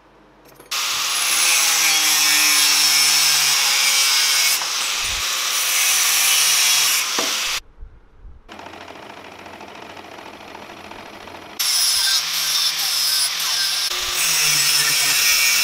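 Angle grinder disc cutting into a steel bike sprocket: two long, loud runs of grinding noise, with a short break and a quieter stretch of metal working between them.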